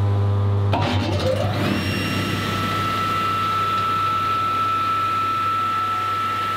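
Table saw ripping an oak board: the motor's low hum runs throughout, and about a second in the blade bites into the wood. From then on a steady high whine from the cut sits over the hum.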